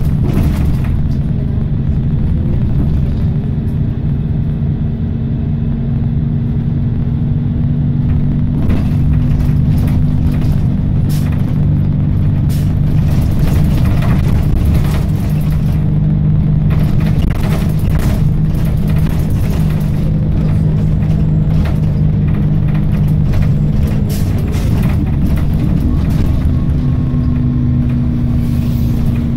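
Optare Tempo single-deck bus running along the road, heard from inside the passenger saloon: a steady low engine drone that shifts in pitch a few times, with scattered knocks and rattles from the body over the road surface.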